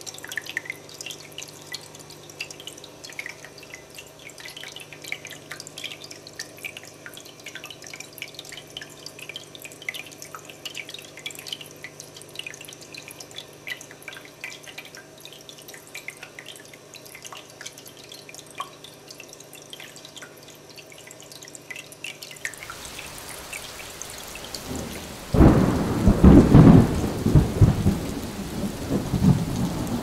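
Water dripping and trickling in a bronze-and-copper fountain, many small irregular drops over a faint steady hum. About three-quarters of the way through a hiss comes in, and near the end a loud, irregular low rumble takes over.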